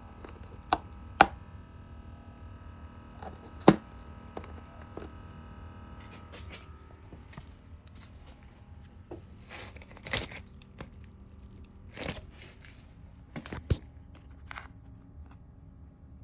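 Sharp clicks and crunches, about a dozen, from plastic seed trays and drip-line tubing being handled close up. Underneath is a faint, steady hum with a few held tones: the small solar-powered drip-irrigation pump running quietly.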